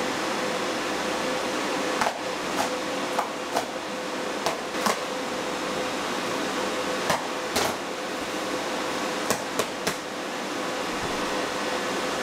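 Irregular sharp knocks and clicks, about a dozen, clustered between roughly two and ten seconds in, over a steady fan hum with a constant tone.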